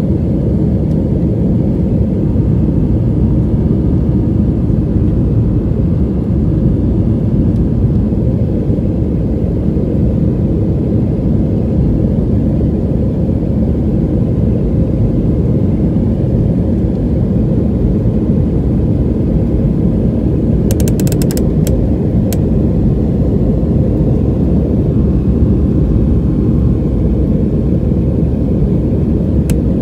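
Steady low roar of an Airbus A320-family airliner's jet engines and rushing air, heard inside the cabin during the climb after takeoff. A short cluster of sharp clicks comes about two-thirds of the way through.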